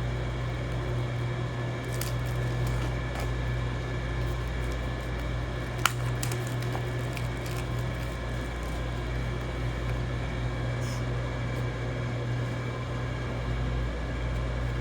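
Steady low electrical hum with scattered small clicks and taps from handling a phone's retail box and packaging, the sharpest click about six seconds in.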